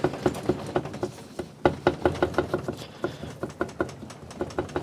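Quick irregular series of light metallic taps and clicks, several a second with a brief ring, as a small lever works the two halves of a Subaru EJ20 engine block apart.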